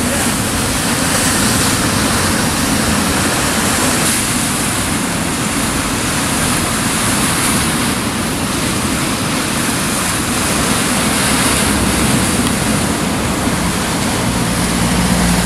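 Rough sea surf breaking and churning against rocks, a steady loud wash of noise.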